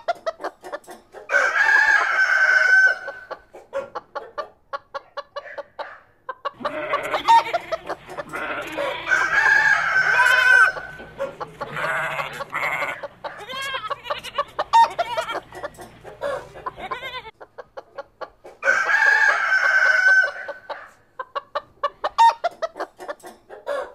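Chickens clucking in quick runs of short calls, with roosters crowing three times: about a second in, for several seconds from about a quarter of the way through, and again near the end.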